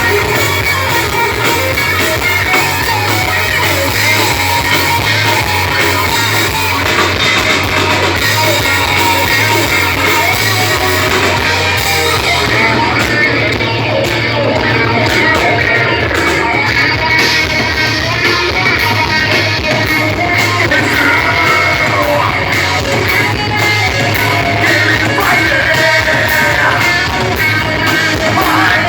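Rock band playing live: electric guitar and drums under a sung, partly shouted vocal, running continuously at a steady loud level.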